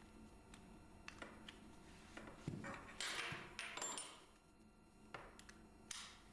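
Combined rear wheelchair restraint units being taken off the vehicle's floor rail: faint scattered clicks and knocks of the metal fittings, with a brief rustle about three seconds in.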